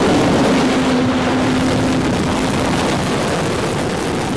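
Missile's rocket motor roaring at lift-off: a loud, even rushing noise that starts suddenly and cuts off abruptly near the end, with a steady hum under it for the first couple of seconds.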